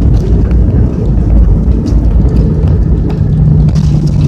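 Passenger airliner rolling along the runway, heard from inside the cabin: a loud, continuous low rumble of engines and wheels, with a steady low hum coming up about two and a half seconds in.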